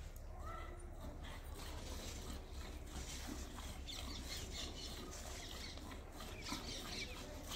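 Cow being milked by hand into a plastic bucket: milk squirting from the teats in repeated short hissing streams, which grow denser from about three seconds in.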